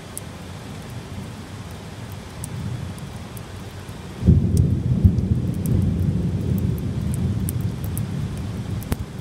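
Heavy rain falling steadily, with a sudden loud crack of thunder about four seconds in that rolls on as a long low rumble.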